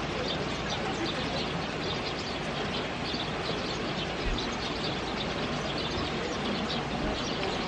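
Steady rushing of a flowing river, with birds chirping over it throughout.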